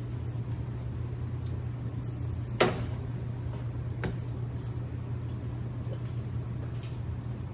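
Steady low hum with a short clatter about two and a half seconds in and a lighter click about a second and a half later: the wall oven opened and the roasting pan with its wire rack handled.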